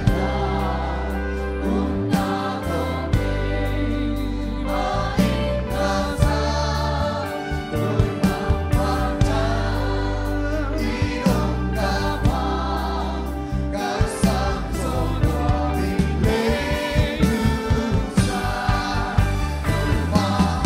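A live worship band and congregation singing a Zomi (Tedim Chin) hymn. A lead singer and the crowd's voices sound together over electric guitar, bass and drums keeping a steady beat.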